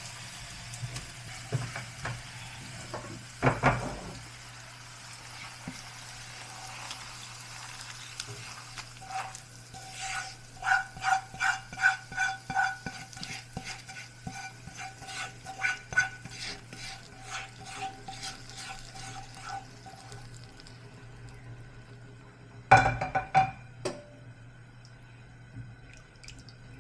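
Spice paste sizzling as it is sautéed in a metal pan. From about nine seconds in to about twenty, a spatula scrapes and taps the pan in quick strokes that make the pan ring. There are two louder knocks, one a few seconds in and one near the end.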